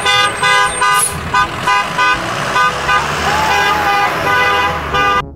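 A horn tooting in a fast, even series, about three short toots a second, cutting off near the end.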